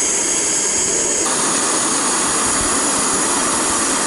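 Jetboil Flash canister-gas burner running at a high flame: a steady, loud hiss that turns brighter about a second in, while it heats a cup of water toward the boil.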